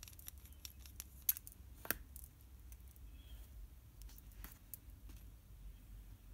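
Light handling sounds: a series of small clicks and taps as a plastic fountain pen and a glass ink bottle are set down and moved about on a paper-covered table. The two sharpest knocks come about one and two seconds in.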